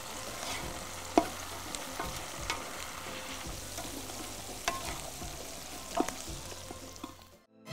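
A wooden spoon stirring onions, tomatoes and spices as they fry in a large aluminium pot, with a steady sizzle and a few sharp knocks of the spoon against the pot. The sound cuts off just before the end.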